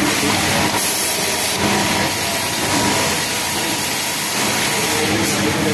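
Pegasus WT600 industrial flatlock sewing machine running steadily while topstitching a seam, a continuous mechanical whir of the motor and stitching mechanism.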